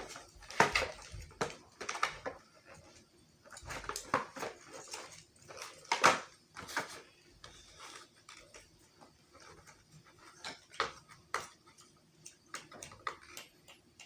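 Plastic packaging and toy parts being handled: irregular clicks, taps and crinkles, louder in the first half.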